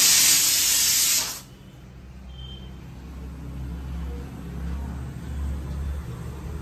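A loud hiss lasts about a second and a half and cuts off sharply. Then comes the low, steady rumble of a lit gas stove with a pot of water boiling on it.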